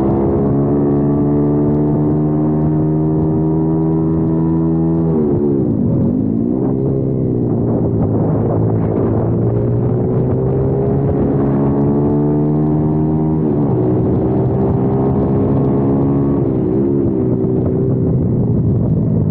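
Kayo TT 140 pit bike's single-cylinder four-stroke engine heard from on board, running hard with its pitch climbing slowly. The pitch dips sharply and climbs back about five seconds in and again about thirteen seconds in, with a smaller wobble near the end.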